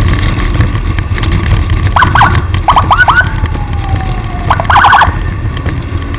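Short, quickly rising siren-like whoops in three quick clusters from an escort vehicle clearing traffic, the last cluster the loudest, over a steady rumble of engine and wind noise.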